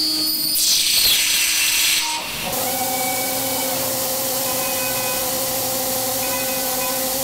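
Five-axis CNC milling machine cutting a metal cylinder head with an end mill. A loud hiss for the first two seconds or so, then the spindle and cut settle into a steady whine made of several held tones.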